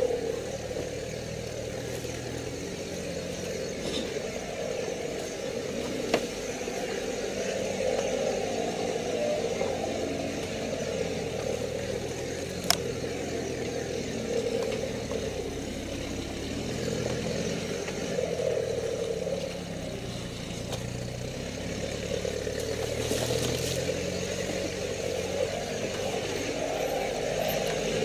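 Off-road 4x4 engine running at low, slowly varying revs while crawling along a muddy, rutted track. There are two sharp clicks, the second at about the middle.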